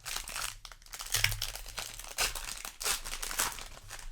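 Foil wrapper of a Magic: The Gathering play booster pack crinkling as it is handled and torn open, an irregular run of rustles.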